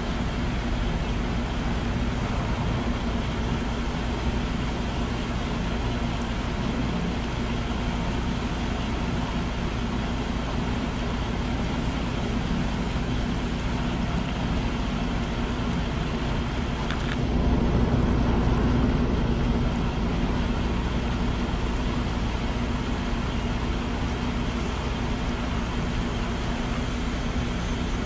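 Diesel being pumped into a truck's fuel tank through a dispenser nozzle: a steady hum of pump and rushing fuel, swelling louder for a few seconds a little past halfway.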